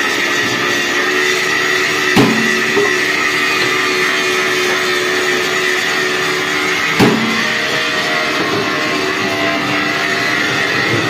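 Workshop machinery running with a steady hum, broken by two sharp metal clanks, about two seconds in and about seven seconds in, as a steel truck rim is handled at the press.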